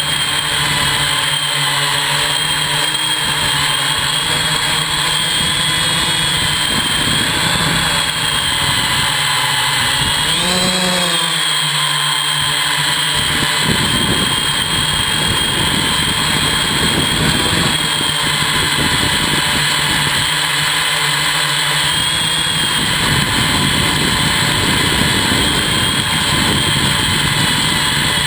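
A hexacopter's six electric motors and propellers droning in flight, with a steady high motor whine. About ten seconds in the pitch swells up and back down as the motors speed up briefly, and a rougher rushing noise fills much of the second half.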